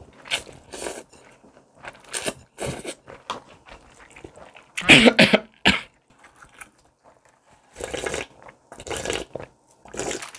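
Naengmyeon noodles slurped in short pulls, then, about five seconds in, a sudden loud fit of coughing from choking on a mouthful, the loudest sound here. Quieter slurps of broth follow near the end.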